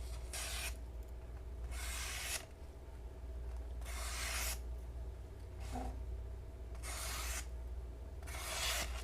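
Blade of a Spyderco Brad Southard flipper copy slicing through paper in a sharpness test: five short slicing strokes, each a brief hiss, that mark a sharp edge gliding through the sheet.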